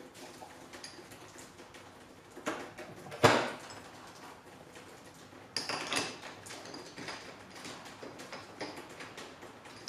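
Clinks and knocks of metal tooling being handled as a drill chuck is fitted into a vertical milling machine's spindle. There is a sharp knock a little over three seconds in, the loudest sound, and a short clatter of knocks at about five and a half seconds.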